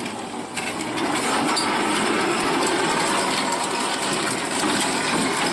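Semi-truck running as it moves its box trailer, a steady loud rushing noise with a faint crackle through it.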